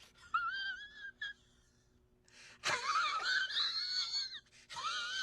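High-pitched, squealing, wheezy laughter from a person, in three wavering stretches with short silent gaps between them.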